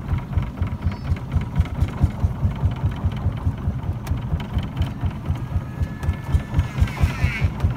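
Motor of a wooden long boat running at a steady cruising speed, a fast, even chugging, heard from aboard the boat. A short high wavering sound comes in near the end.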